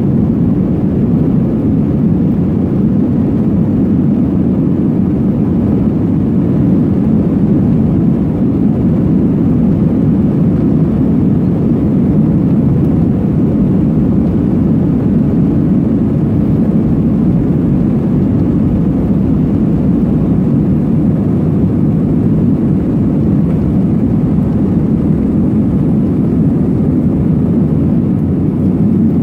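Airbus A320 jet engines at takeoff thrust heard from inside the cabin during the takeoff roll: a loud, steady, deep rushing noise.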